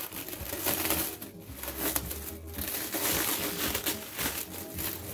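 Clear plastic wrap crinkling and rustling in irregular crackles as it is pulled and peeled off a loudspeaker cabinet.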